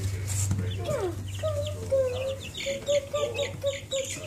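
A brood of baby chicks peeping: a quick, continuous run of short, high, downward-sliding cheeps from several birds at once, busiest in the second half.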